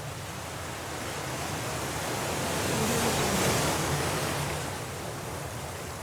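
Stormy sea waves: the surf swells to a loud break about halfway through, then washes back down.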